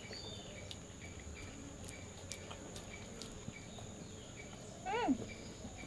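Insects droning steadily at a high pitch, with short chirps repeating every fraction of a second and one brief falling call about five seconds in.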